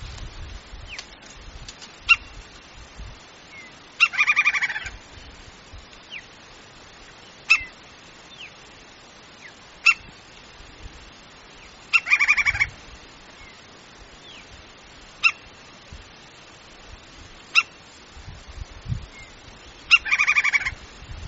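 Woodpecker calling: three call series, each about a second long and about eight seconds apart, with single short call notes between them.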